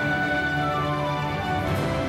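Background music of long held notes, with a melody line moving in slow steps.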